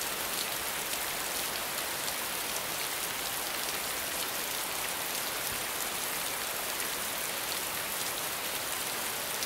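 Steady rainfall: an even, dense hiss sprinkled with many fine drop ticks.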